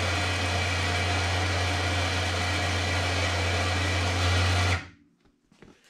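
Can-Am 4500 lb electric winch running steadily on its first test from the dash switch: a motor-and-gear whine over a low hum that cuts off sharply about five seconds in. The winch works.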